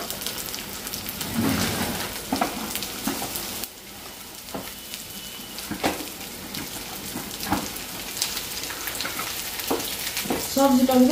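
Onion bhaji batter frying in hot oil in a cast-iron skillet: a steady sizzle with scattered crackles and pops.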